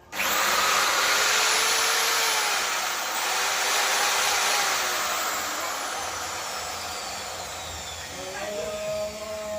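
Electric drill machine running continuously, a steady whirring hiss that starts suddenly and eases slightly in level towards the end.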